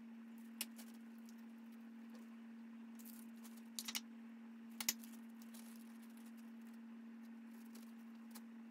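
Faint clicks and light taps of small objects being handled: one under a second in, a short cluster about four seconds in and a sharper click near five seconds, over a steady low hum.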